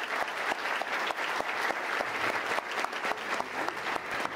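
Audience applauding: many hands clapping, a dense, steady patter of claps.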